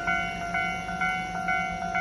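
Japanese railway level-crossing alarm ringing its standard warning tone, a regular ringing strike a little over twice a second, which signals that a train is approaching and the barriers are down.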